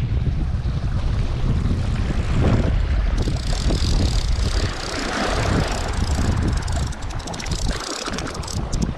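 Wind buffeting the microphone in a steady low rumble, over the hiss of sea water washing against shoreline rocks. The wind eases about seven and a half seconds in, and a few light clicks come near the end.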